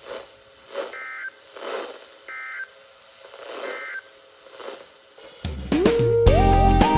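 Three short bursts of Emergency Alert System end-of-message data tones (the digital "NNNN" bursts), about a second apart, over faint weather-radio background audio. Loud electronic music with a beat starts about five and a half seconds in.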